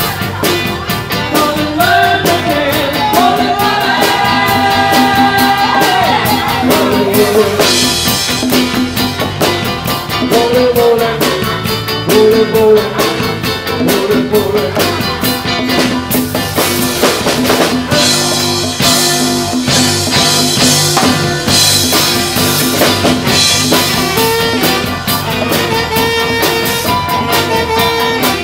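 Live band playing a song: drum kit keeping a steady beat under electric guitar and singing, heard loud and close from beside the stage.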